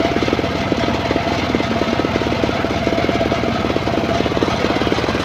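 Homemade engine-driven circular sawmill running steadily as a log is fed through it: a fast, even chugging with a steady tone above it.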